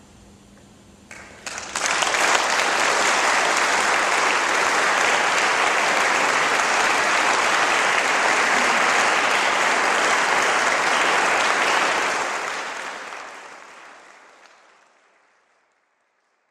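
Audience applauding: a few first claps about a second in, quickly building to full, steady applause, which fades away near the end.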